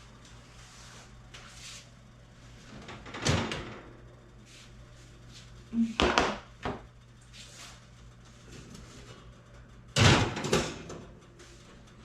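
A few separate knocks and bangs like a door or cupboard being shut, the loudest cluster about ten seconds in, over a low steady hum.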